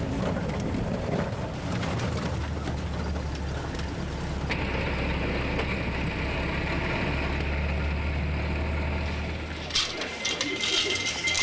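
Engine and road noise inside a moving jeep: a steady low rumble. Near the end the rumble drops away and sharp clicks and clatter follow.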